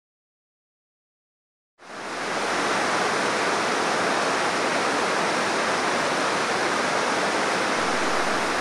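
Silence for about two seconds, then the steady rushing of a small waterfall cascading into a river fades in and holds unchanged.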